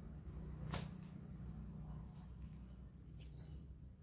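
A sickle slicing through a stem or branch: one sharp swish-cut about a second in. Near the end, brief high bird chirps, over a steady low hum.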